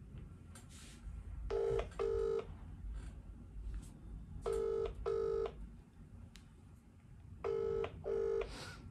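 British telephone ringback tone through a mobile phone's loudspeaker while an outgoing call rings: three double rings, each two short tones, about three seconds apart.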